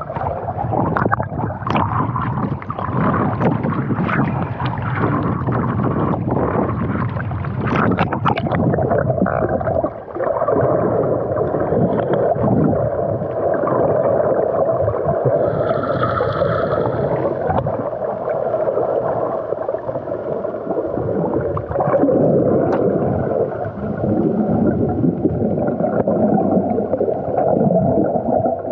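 Underwater sound picked up by a camera's microphone: a steady, muffled water rush. Through the first nine seconds or so there are sharp clicks and splashes of bubbles as the camera breaks the surface and goes under.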